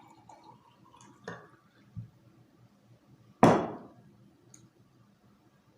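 A drinking glass handled at the table: small clinks and a low knock, then a loud knock with a short ring about three and a half seconds in as the glass is set down hard.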